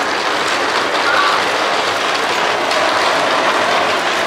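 Steady, even running noise of a passenger train standing at a station platform.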